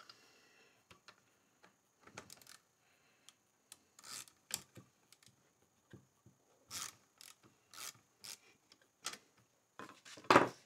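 Scattered short scrapes and rasps of a ring spanner and a small 1/4-inch ratchet turning a bolt on a plywood jig, coming every second or so. A louder knock comes near the end.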